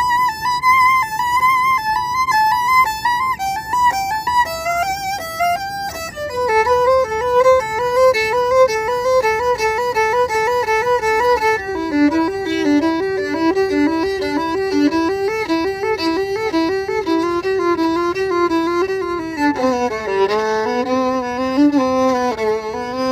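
Solo violin playing an improvised line of quick bowed notes, high at first, then working down to the lower strings: about six seconds in, again near the middle, and once more near the end.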